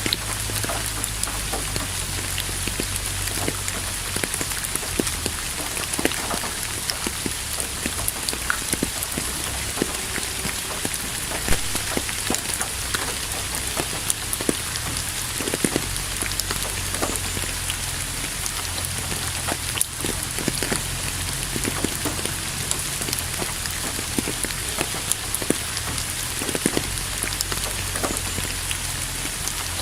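Steady rain falling on a surface: an even hiss with many close, sharp drop impacts scattered through it and a low rumble underneath.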